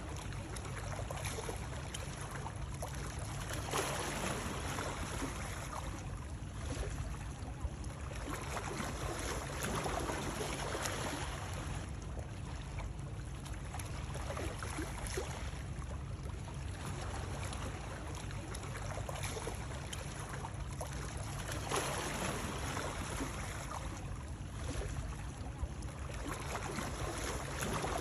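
Continuous rushing, splashing water noise over a steady deep rumble, swelling every few seconds, played as a soothing white-noise sound.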